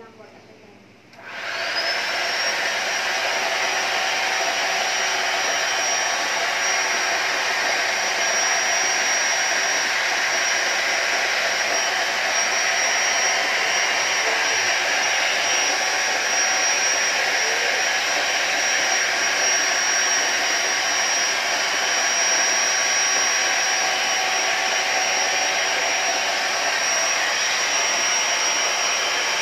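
Electric air pump switching on about a second in, spinning up with a brief rising whine, then running steadily as it inflates an inflatable pool.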